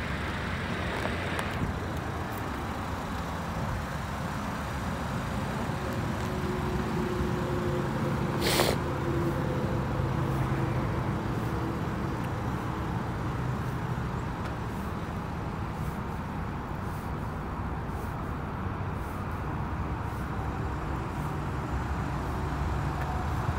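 Steady low vehicle rumble, with a single short hiss about eight and a half seconds in.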